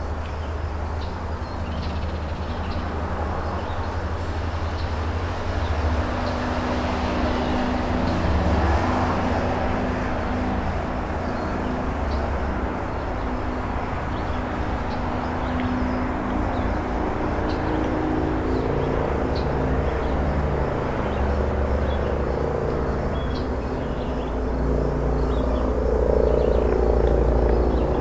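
Steady outdoor background noise: a low rumble with a faint hum, and a few faint, short, high ticks.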